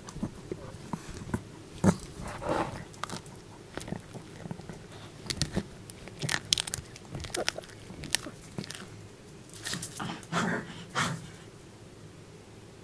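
A small dog chewing a duck neck bone treat up close, with irregular sharp crunches and cracks as the bone breaks between its teeth.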